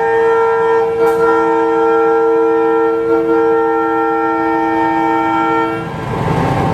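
Railcar (autorail) horn sounding one long, steady blast of several tones together, signalling the train's departure. It cuts off about a second before the end, leaving a rushing noise.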